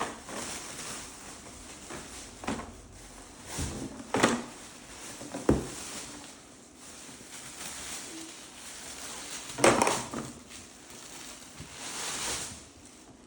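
Unpacking noises: packaging rustling and crinkling while vacuum cleaner parts are handled, with several short sharp crackles and knocks, the loudest about ten seconds in.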